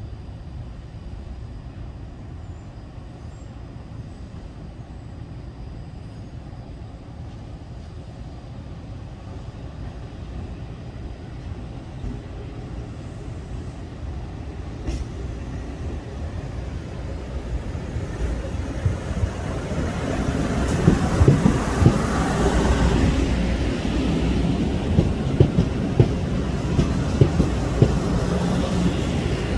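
Passenger train approaching and passing, a low rumble growing louder for about twenty seconds, then wheels clicking over the track as the cars go by near the end.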